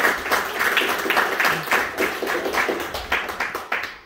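Audience applause mixed with music, dense and loud, stopping abruptly near the end.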